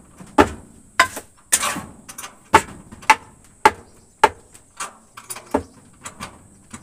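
Steady hammering, like nails being driven: about two sharp blows a second, each with a short ringing tail.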